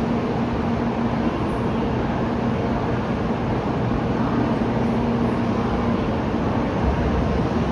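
Shinkansen 500 series train pulling out of the station: a steady running noise with a low, even hum.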